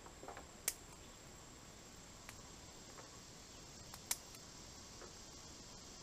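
Faint, steady high-pitched drone of insects, broken by two sharp clicks, one under a second in and one about four seconds in, with a few lighter ticks between.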